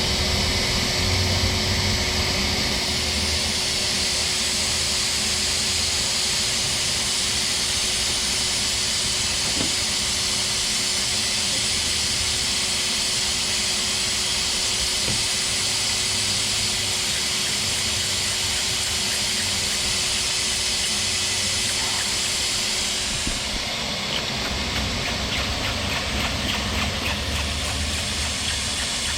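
Shop vac running as a blower, pushing air into a car's exhaust system: a loud, steady rush of air with a constant motor whine. Near the end the whine drops away and the hiss changes.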